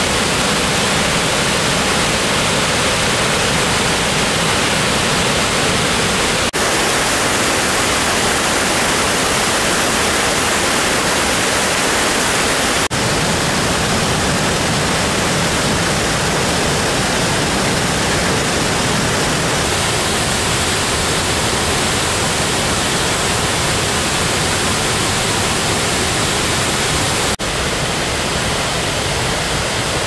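Steady rush of Harajiri Falls, a 20 m high, 120 m wide waterfall pouring over lava cliffs into its plunge pool. The sound dips briefly three times, at cuts between shots.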